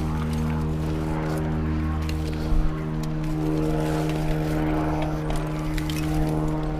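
A steady droning hum with a row of even overtones holds through, with scattered clicks and knocks from a mountain bike rolling over rough trail.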